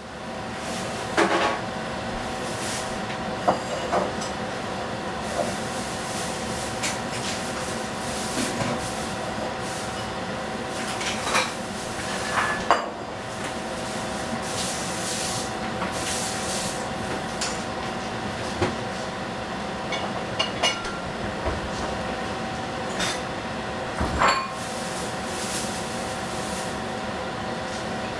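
Tomato and egg cooking in a covered stainless steel frying pan over a gas burner: a steady sizzling hiss with sharp pops and clicks every few seconds, over a steady fan-like hum.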